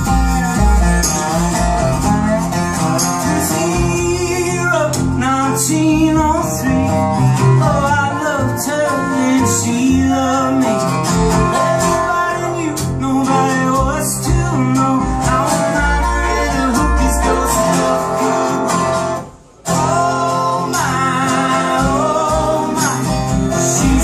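Live acoustic string band playing a folk-country song: strummed acoustic guitars, fiddle and upright bass under singing. The music briefly drops out for a split second about three quarters of the way through.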